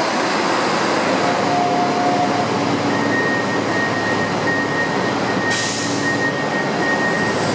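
Steady, loud mechanical rumble and hiss of airport apron noise, with a thin high whine coming in about three seconds in and holding steady.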